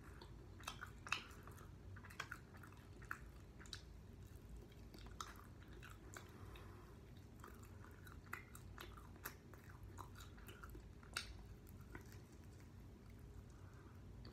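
A person quietly chewing and biting into sauced chicken wings, with scattered small wet clicks and smacks; two sharper clicks stand out, about a second in and about eleven seconds in.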